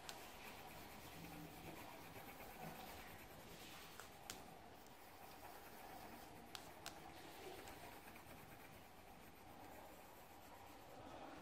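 Faint scratching of a pen colouring on paper, with a few sharp clicks near the middle.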